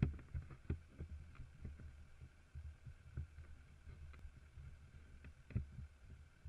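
Wind buffeting the microphone of a camera mounted on a moving motorcycle: muffled, irregular low thumps, louder just as it begins and again about five and a half seconds in.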